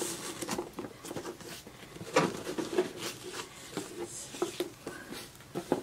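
Fabric ribbon being untied from a cardboard gift box: light rustling and sliding of the ribbon over the box lid, with small scattered taps and scrapes as fingers work the knot.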